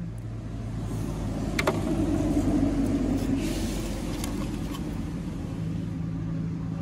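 A motor engine runs steadily, growing louder over the first couple of seconds and then holding, with a few sharp clicks over it.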